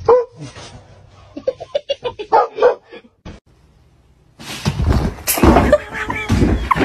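A dog's short whines and yips, then, after a brief pause, a person laughing loudly close to the microphone.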